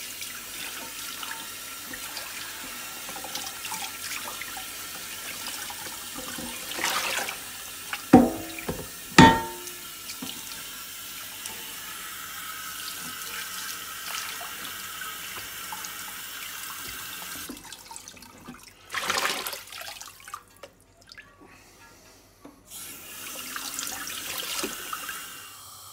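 Tap water running into a stainless steel sink and splashing over a Weber cast iron skillet as it is scrubbed with a cloth and rinsed. Two sharp knocks about a second apart come about eight seconds in, and the water quietens for a few seconds before running again near the end.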